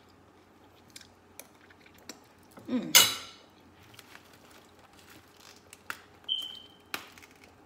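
Kitchen utensils and dishes being handled: scattered light clinks and knocks, one louder clatter about three seconds in, and a short high ringing tone a little after six seconds.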